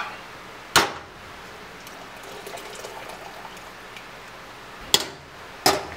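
Fish stock trickling and dripping through an aluminium colander into a soup pot, with three sharp metal clanks of the pots and colander being handled: one about a second in, two close together near the end.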